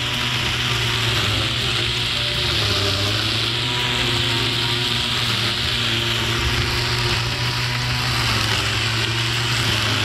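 Cordless battery-powered grass trimmer with plastic cutting blades running steadily while cutting lawn grass: an even motor hum with a hiss over it.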